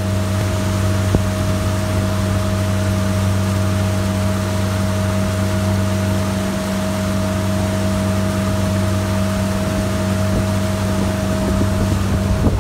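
A boat's engine running steadily at cruising speed, a constant hum, with water rushing past the hull and wind noise.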